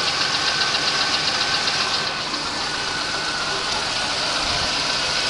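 A 1989 Oldsmobile Cutlass Supreme engine idling steadily, heard from underneath, with a light, fast tapping through it. The owner takes the tapping for piston slap.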